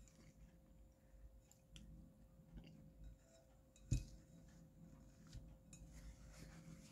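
Quiet eating sounds: a plastic spoon lightly clicking and scraping in a ceramic bowl of oatmeal, with one sharper tap about halfway through, over a faint steady hum.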